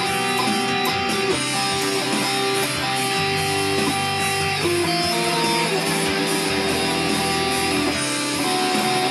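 Stratocaster-style electric guitar playing a melody of held single notes over a ballad backing track in E minor with a bass line that changes chord every couple of seconds.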